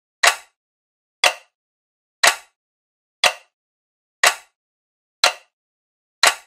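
A short, sharp tick-like sound effect repeating exactly once a second, seven times, each dying away quickly with silence in between.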